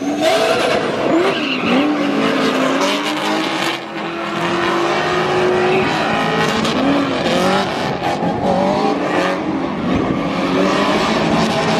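Two drift cars sliding in tandem: engines revving up and down in pitch over the continuous screech of spinning, smoking tyres.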